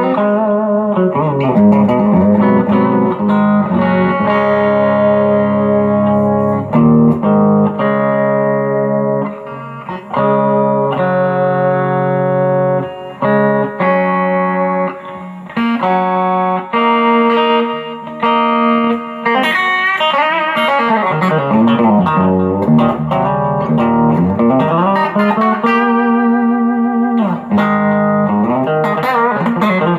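M-Musi Virgo Fusion electric guitar on its humbucker pickups, played through a Quilter Superblock US amp set to a clean tone: chords and single notes throughout, with some notes bending down and back up in pitch in the last third.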